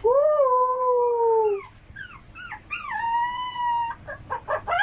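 Dog howling: a long drawn-out howl that sinks slightly in pitch, a few short rising yips, then a second, higher long howl.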